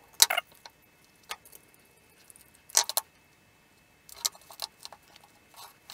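Scattered clicks and light scrapes of a screwdriver working the terminal screws of a plastic timer relay and of wires being handled, a few sharp ticks a second or so apart with quiet between.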